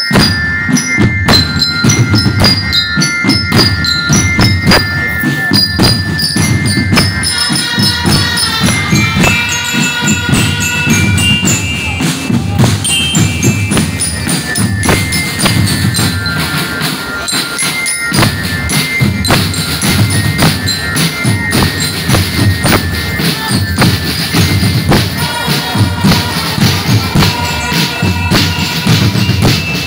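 Marching drum band playing: bass drums and snare drums keeping a steady beat under a bright, high, stepping melody and low brass.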